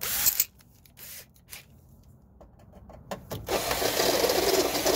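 Cordless drill with a step bit running steadily, starting about three and a half seconds in. A brief rattle of handling comes at the very start.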